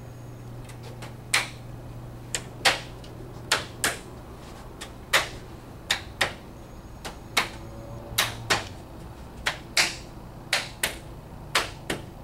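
Heel of the hand tapping a wooden drying-rack side frame down onto its dowel tips to seat it fully: a series of sharp wooden knocks, often in pairs, about one or two a second, starting about a second in.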